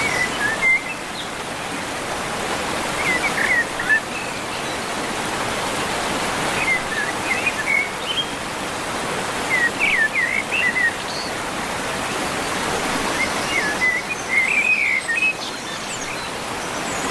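A small bird sings short chirping phrases every two to three seconds over a steady rush of running water.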